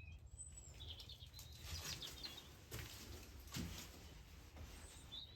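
Faint, high chirps of small birds, with soft rustles and a light knock about three and a half seconds in.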